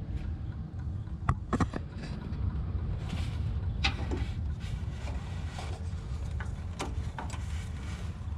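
Scattered light clicks and knocks of hands working the plastic quick-disconnect fittings and fuel line at a truck's fuel filter, over a steady low rumble.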